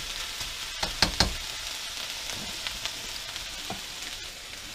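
Beef, green bean and oyster mushroom stir-fry sizzling steadily in a skillet, the released mushroom and vegetable liquid now cooked off so the food is frying again. A spatula knocks and scrapes against the pan a few times about a second in, with lighter scrapes later.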